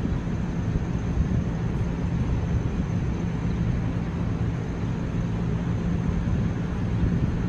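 NJ Transit double-deck MultiLevel passenger coaches close by, giving a steady low rumble with a constant hum.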